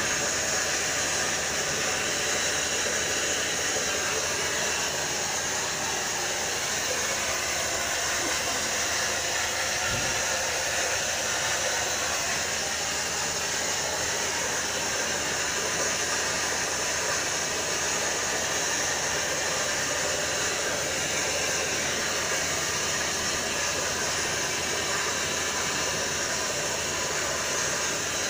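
Steady hiss of steam pouring off a large stainless-steel steam vat, an even rushing noise with no change throughout.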